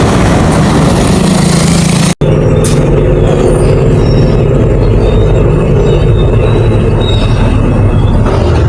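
A vehicle's engine and road noise while driving: a loud, steady low hum with a few held tones. It drops out for an instant about two seconds in.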